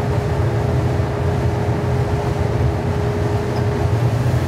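Steady low rumble of an indoor shooting range's ventilation system, with a faint steady hum above it.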